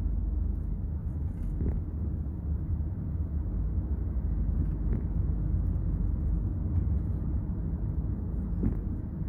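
Steady low rumble of road and engine noise heard inside a Kia K5 cruising on a highway.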